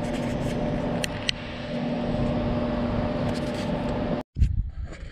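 A machine running steadily with a low hum and a rushing noise, with a couple of sharp ticks, cutting off suddenly about four seconds in; after it come fainter sounds and a thump.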